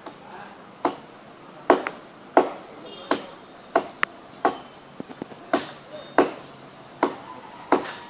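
A blade chopping into a coconut palm: about a dozen sharp blows, roughly one every two-thirds of a second.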